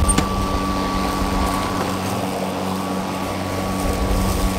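Greenworks 40-volt cordless self-propelled lawn mower running while it drives over grass: the brushless electric motor and spinning blade give a steady hum with a high whine over a rushing noise.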